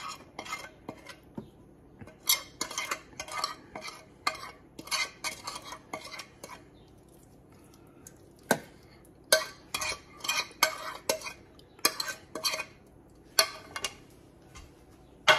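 Spices being scraped off a plate onto a lamb leg in a roasting pan, in runs of short, quick scraping strokes against the dish. There is a sharp knock about halfway through and a louder one at the very end.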